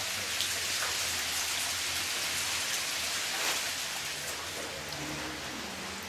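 Steady rush of falling water splashing onto rock and into a pool, with scattered individual drops.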